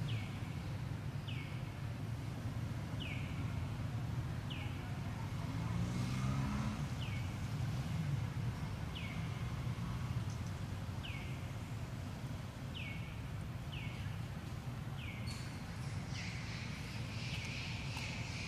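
Outdoor ambience: a steady low background rumble with a short, high, falling chirp repeated about every second and a half, joined about three-quarters of the way in by a denser high chirring.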